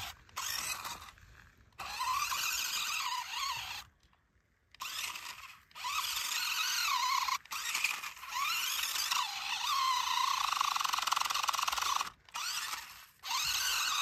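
Small electric motor and gearbox of a toy RC rock-crawler truck whining as it drives in spurts, the pitch rising and falling with the throttle. It cuts out briefly several times.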